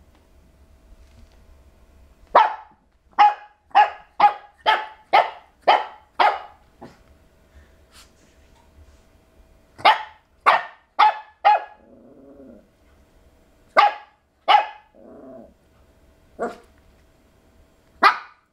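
Shih Tzu puppy barking at his own reflection in a mirror: a quick run of about eight sharp barks, then more barks in a group of four and singly, with two short low growls between them.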